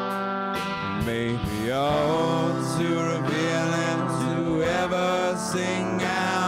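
Live band playing: electric guitars, an electric upright bass and a drum kit with cymbals, pitched notes sliding and bending over a steady beat.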